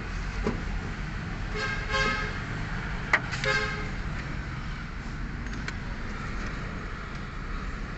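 Two short toots of a vehicle horn, about a second and a half apart, over a steady low rumble; a sharp click sounds just before the second toot.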